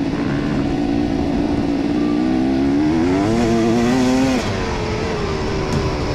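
Enduro motorcycle engine running steadily, then revving up with a rising pitch for about a second and a half before cutting off suddenly to a lower steady running sound.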